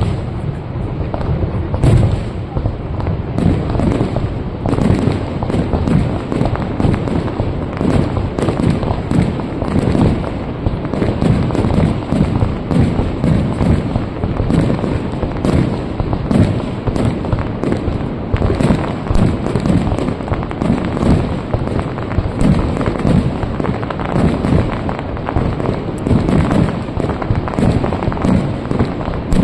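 Aerial fireworks shells bursting in quick succession, several bangs a second, in a continuous barrage with no pause.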